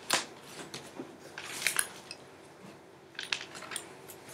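Handling noise close to the microphone: scattered clicks, taps and rustles, with a sharp click at the start and a rustly cluster a little before the middle.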